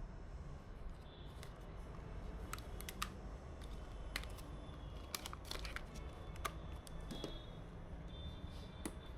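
Scattered light clicks and taps of hands handling computer parts and packaging, a few in quick succession around the middle, over a low steady hum.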